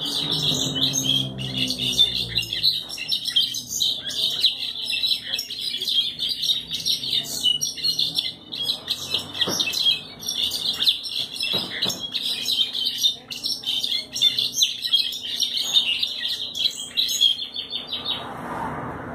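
Caged jilguero finch singing a long, unbroken song of rapid high twittering notes, stopping near the end.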